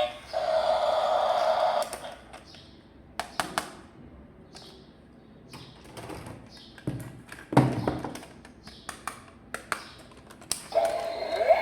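Short electronic toy tune or sound effect playing, then scattered clicks and taps of plastic toy parts being handled. The electronic sound starts again near the end.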